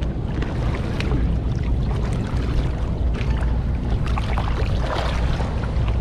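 Wind noise on the microphone over water sloshing around legs wading through shallow river water, with small scattered splashes.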